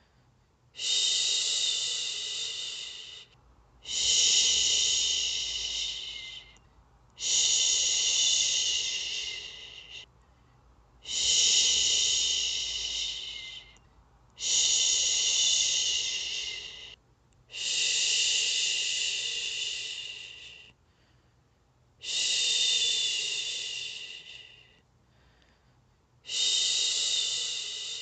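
A woman shushing a baby to sleep with a long 'shhhh', repeated eight times. Each shush lasts two to three seconds, starts sharply and fades away, with a short pause for breath before the next.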